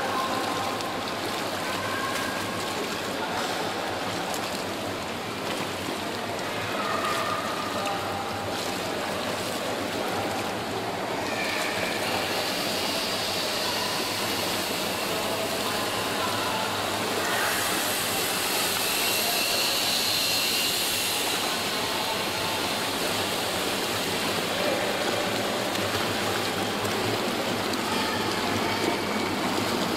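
Pool water splashing and churning steadily as a child swims with arm strokes and kicks.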